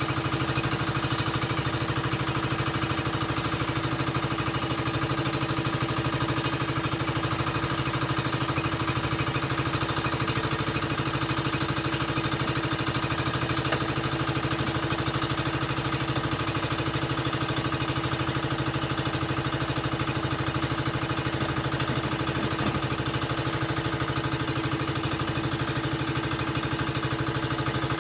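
An engine running steadily at one constant speed, with a fast, even beat throughout.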